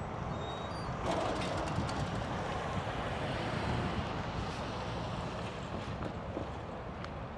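Steady vehicle and wind noise, louder from about a second in, with a few faint clicks scattered through it.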